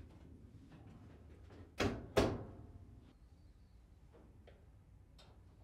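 Two thunks about half a second apart as a Whirlpool dryer's front panel is pushed back into place against the cabinet, followed by a few faint clicks.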